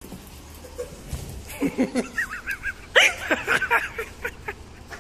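A small dog whining and yelping in a run of short, high squeals, mixed with people laughing.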